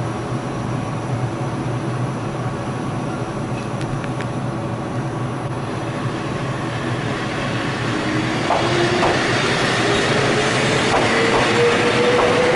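Wakayama Electric Railway 2270 series electric train running past close by. It grows louder about two thirds of the way in, with a motor whine rising steadily in pitch as it gathers speed and several sharp wheel clicks over rail joints.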